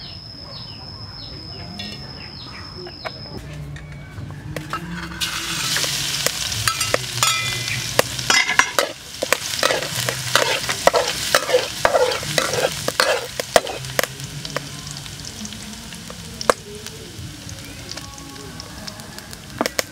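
Chopped aromatics frying in hot oil in a steel wok: a sizzle starts about five seconds in, with a metal spatula scraping and clattering against the wok as it stirs. The sizzle settles to a quieter, steady frying in the second half. Before the frying starts there is a steady high tone.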